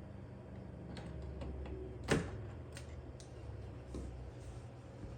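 Light clicks and taps of hands working on a microwave's door micro switches and their wire connectors, with one sharp click about two seconds in, over a steady low hum.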